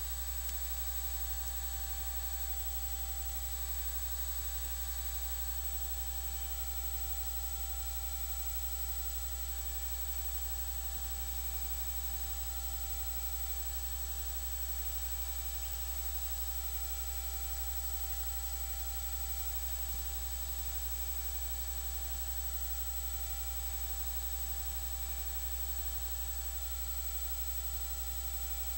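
Steady low electrical hum with a faint buzz, hiss and a thin high whine; no footfalls, voices or other events stand out.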